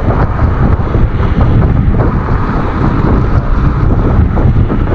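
Wind buffeting the microphone of a camera riding a fast-moving electric scooter: a loud, steady, low rushing rumble.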